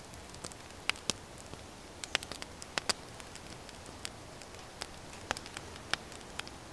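Scattered sharp crackles and pops, about a dozen at irregular intervals, over a steady low hiss.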